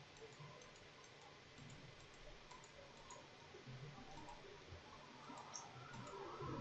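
Faint, scattered computer mouse clicks over near-silent room tone, each click placing a point of a selection line.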